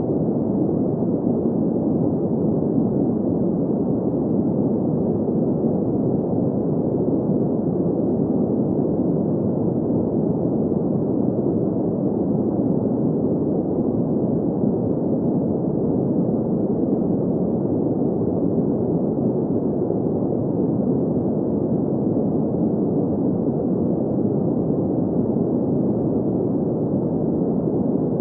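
Steady, unchanging hiss of synthesized filtered noise, weighted toward the deep middle range with nothing high, of the green-noise kind used as a sleep sound.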